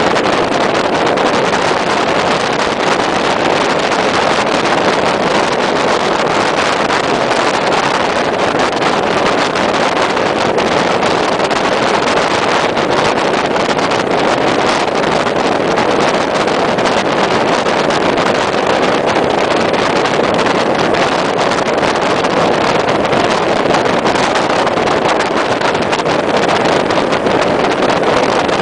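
Steady rush of wind and road noise from a moving vehicle, recorded on board, with no distinct engine note.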